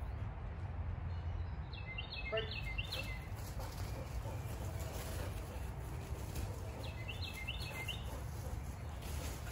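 Outdoor background: a steady low rumble, with a songbird giving a quick run of repeated high chirps about two seconds in and again about seven seconds in.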